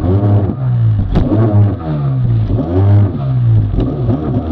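Kawasaki 750SX stand-up jet ski's two-stroke twin engine revving up and down several times as the throttle is worked, with water noise underneath. A sharp knock about a second in.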